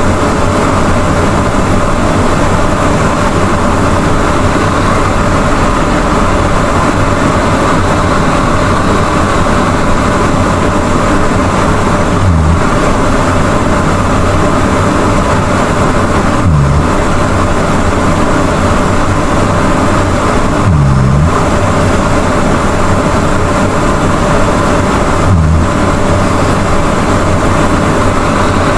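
A person snoring loudly, a steady rough noise with a deeper low burst about every four seconds in the second half.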